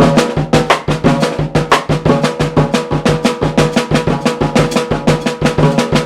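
Ellis drum kit played in a steady, repeating African-style groove, feet and hands on different parts of the kit at once, about five or six strokes a second with the drums ringing between hits.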